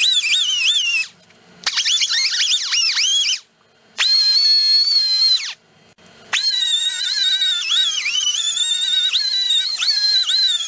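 Pneumatic die grinder whining at high pitch in four runs with short stops between, its pitch dipping repeatedly as the abrasive disc bites into steel and holding steady in the third run as it spins freely. It is grinding a tight-fitting key or keyway on the engine's shaft.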